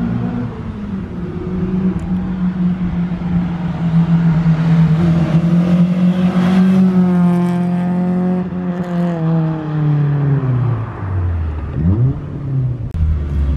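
Honda Integra DC2's four-cylinder engine heard through a GReddy Supreme SP cat-back exhaust, with its catalytic converter still fitted, as the car drives past. The engine note holds steady and grows louder as the car comes by, then drops in pitch as it pulls away. Near the end there is a short rising rev.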